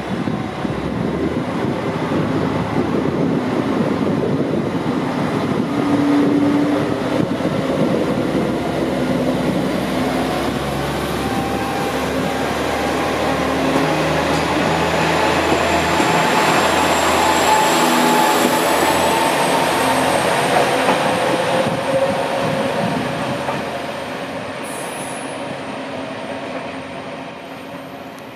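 JR Kyushu's Aru Ressha, a diesel railcar train, moving off and running past close by: diesel engine running under load with steady notes, wheels rolling on the rails, and a thin high squeal rising in the middle. The sound fades near the end.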